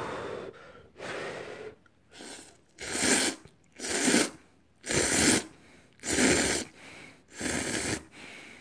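Slurping of tonkotsu ramen noodles from a bowl: about eight short, noisy slurps, roughly one a second.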